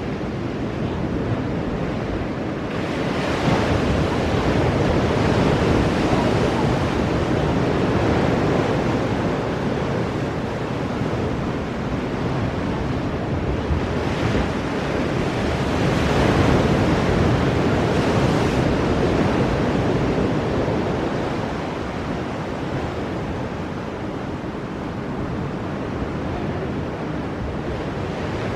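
Ocean waves breaking on rocky shore, a continuous rushing surf that swells louder about three seconds in and again just past the middle. Wind buffets the microphone.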